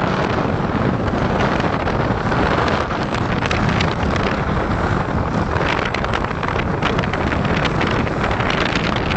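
Wind buffeting the microphone aboard a boat on open water: a steady loud rush with frequent crackling gusts.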